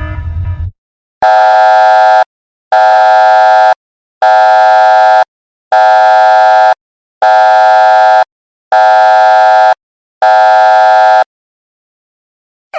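An alarm horn sounds seven loud, steady blasts of about one second each, evenly spaced, on one unchanging pitch. Near the start, a lower-pitched sound cuts off just before the blasts begin.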